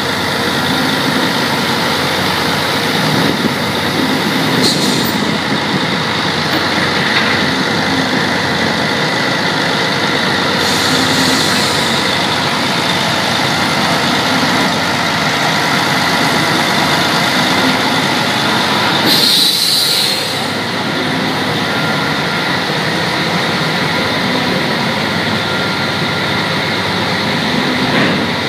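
Pipe handling machine running steadily as it delivers and receives pipe, a continuous mechanical drone. Short bursts of hiss come through, the loudest about two-thirds of the way in.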